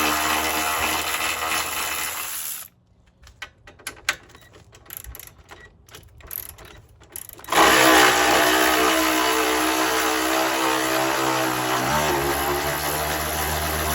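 Power tool driving a 12 mm socket, running in two long spells to spin bolts loose on a car's front end, with a few light clicks between them. Its pitch shifts about twelve seconds in as the load changes.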